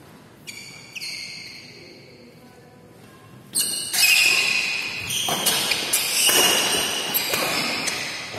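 Badminton rally: racket strikes on the shuttlecock and players' footwork on the court, ringing in a large hall. Two single hits come early, then the play turns much louder and busier about three and a half seconds in, with quick repeated strikes until near the end.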